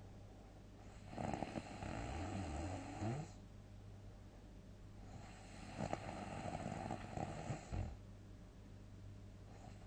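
A sleeping person snoring loudly: two long snores about four seconds apart, each lasting roughly two to three seconds, with a weaker one starting near the end. A steady low hum runs underneath.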